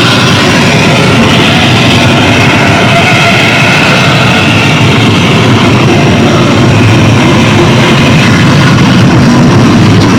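Harsh noise electronics played through an amplifier: a loud, unbroken wall of distorted noise, with wavering higher tones drifting on top.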